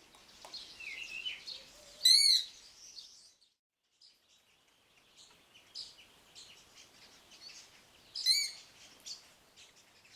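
Male Knysna woodpecker giving its high-pitched shriek call twice, the calls about six seconds apart. Fainter bird chirps fill the gaps between them.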